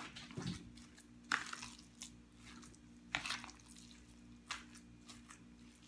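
Ground pork being mixed by hand and fork in a plastic tub: a handful of short, soft squishes about a second apart, over a low steady hum.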